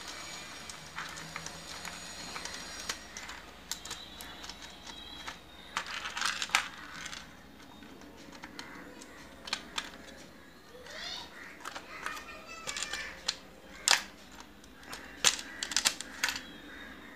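Light, irregular clicks and taps of bare copper wire being handled and pressed against the brass screw terminals of modular switches in a plastic switch board, as the wire is looped from switch to switch.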